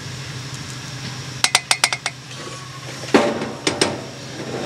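Serving spoon clinking against the rim of a stainless steel saucepan in a quick run of five taps, as gravy is knocked off it, followed a little later by a few louder clanks as the pot and spoon are put down.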